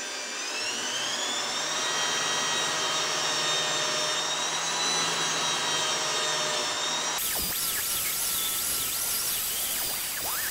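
Electric drill running at speed with a Scotch-Brite disc, cleaning rust and dirt off a motorcycle rear shock part. Its pitch rises in the first second or two and then holds steady; about seven seconds in the sound turns harsher and the pitch wavers.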